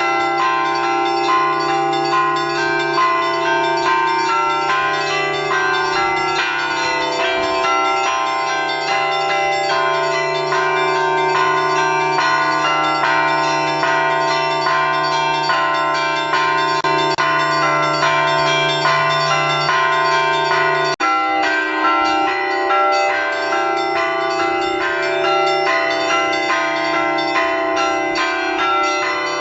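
Russian Orthodox church bells ringing a continuous peal: many bells of different pitches struck together over a deep, steady low bell. There is a momentary break about two-thirds of the way through.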